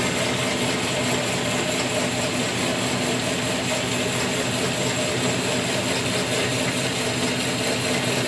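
Jet 8" x 13" horizontal band saw running steadily with no cut being made: its 1.5 hp single-phase motor and belt drive humming as the blade turns.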